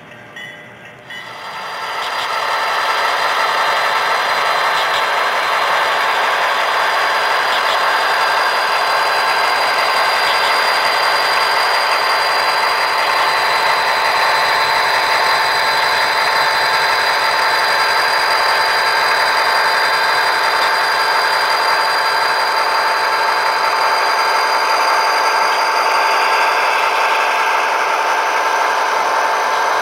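HO-scale model diesel locomotives running on the layout: a steady mechanical whine from their small electric motors and gearing, rising in about the first two seconds and then holding.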